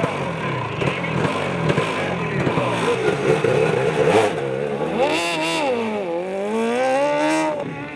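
Ride-on lawnmower engines racing. In the second half one engine's pitch drops and then climbs again as it slows and accelerates.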